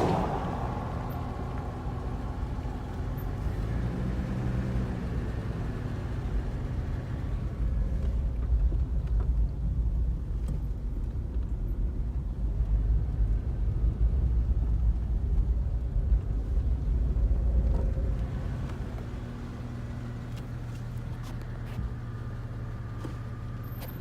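Car engine and tyre rumble heard from inside a vehicle driving slowly along a road. It grows louder for a while in the middle, then eases off.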